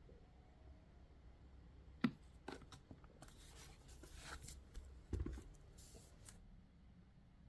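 Hands handling the packaging of a boxed portable speaker: a sharp click about two seconds in, then a few seconds of rustling, light clicks and a dull thump, faint overall.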